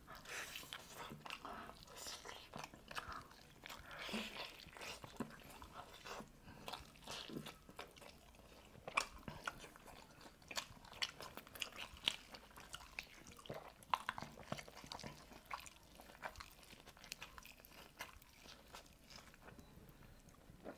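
Faint close-up sounds of eating whole roast chicken by hand: chewing and biting, with irregular small wet clicks and ticks.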